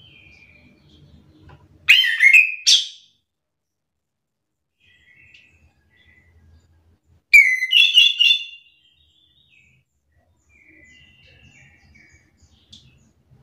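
Chestnut-capped thrush (anis kembang) singing: two loud short bursts of song, about two seconds in and again about seven seconds in, with faint softer chirps between them.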